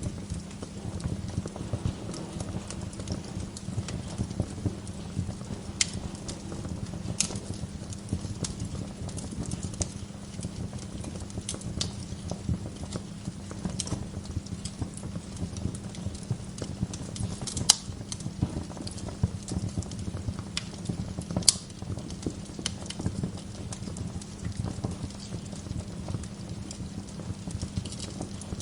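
Wood fire burning in a fireplace: a steady dense crackle with scattered sharp pops, two of them louder in the second half.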